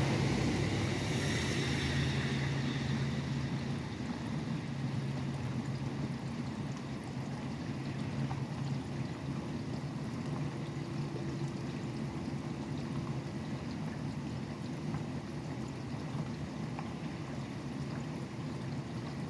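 Steady rain, with highway traffic noise. A passing vehicle fades away over the first three or four seconds, leaving the even hiss of the rain.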